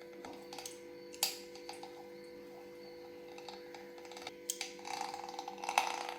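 Metal spoon tapping and scraping against a plate while cutting a soft steamed semolina cake into pieces: a few separate clicks, one sharper click about a second in, then a longer scraping stretch near the end.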